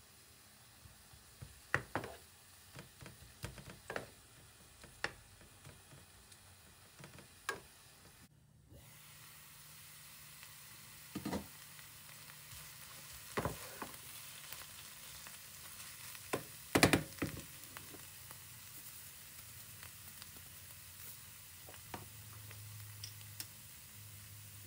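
Food sizzling in a frying pan, with a few sharp knocks of a utensil against the pan. The sizzling sets in about a third of the way through; before it there are only scattered light clicks and taps.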